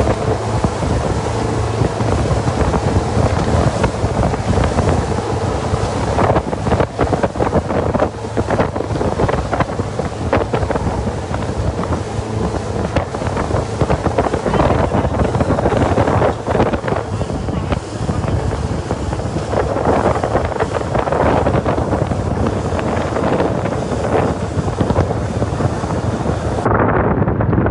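Boat engine running steadily on the water, with heavy wind buffeting the microphone.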